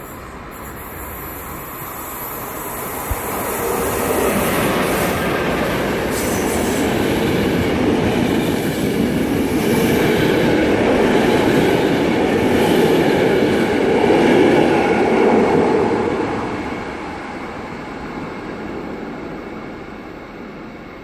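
A train passing along the tracks through the station: it grows louder over the first few seconds, stays loud for about twelve seconds, then fades away.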